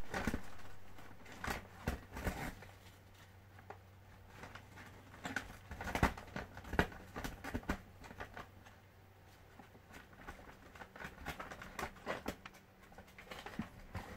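A pet rat chewing in its sleep: irregular soft clicks and smacks of its teeth and mouth, coming in scattered clusters, over a faint steady low hum.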